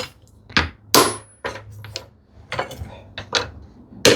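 Sharp knocks, about eight in an irregular run, each strike followed by a short ring. The middle sections of sawn wooden turn-button blanks are being tapped so the pieces pop apart along their saw cuts.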